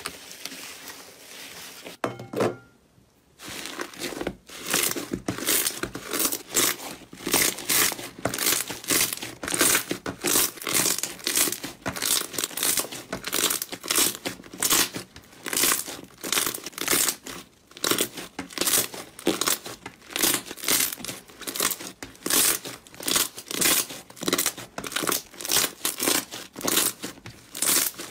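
Slime being squeezed and pressed by hand, giving repeated crackling, crinkly pops about two a second after a short lull about three seconds in.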